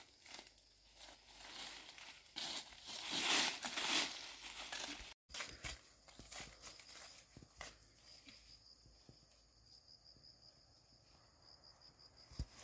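Rustling, crinkling handling noise, loudest about three to four seconds in; after a brief cut, an insect's steady high-pitched pulsing chirr with occasional light clicks.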